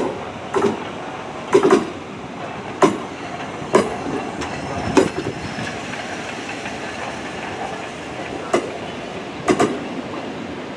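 Class 465 Networker electric multiple unit arriving at a platform, its wheels knocking sharply and irregularly over rail joints and pointwork, some knocks in quick pairs, over steady train running noise.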